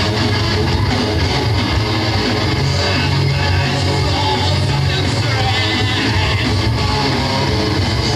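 A rock band playing live and loud, electric guitars over drums and bass in a dense, unbroken wall of sound, heard from within the audience.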